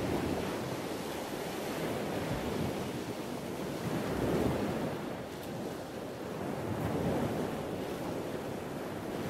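Ocean surf: waves breaking and washing up a sandy beach, a steady rush that swells louder about three times as sets come in.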